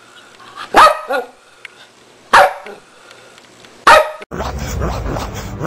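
A dog barking three times, each bark loud and short, about a second and a half apart. Music comes back in near the end.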